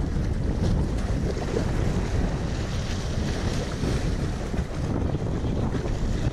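Wind buffeting the camera microphone, with waves washing and splashing against jetty rocks underneath.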